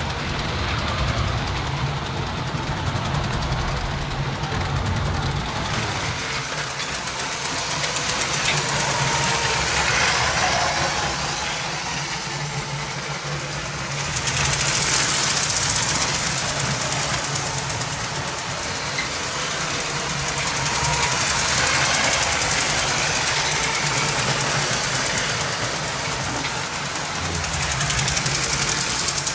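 LEGO 7750 steam engine's 12-volt train motor running, with its wheels rattling along the track, swelling and fading several times as the train passes close by and moves away.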